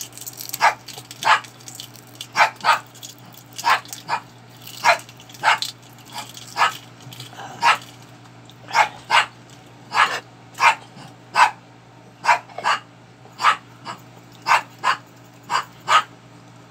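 A dog barking over and over: some two dozen short barks at irregular intervals, often in quick pairs.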